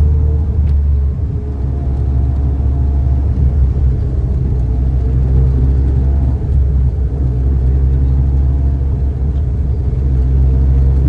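Car engine and exhaust running at low speed, heard from inside the cabin as a deep, steady rumble.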